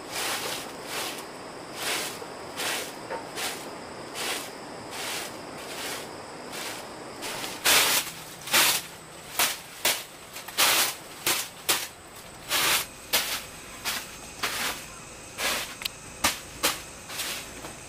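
A run of short rustling or scraping strokes, evenly paced at first, then louder and more irregular about halfway through, over a faint steady high insect drone.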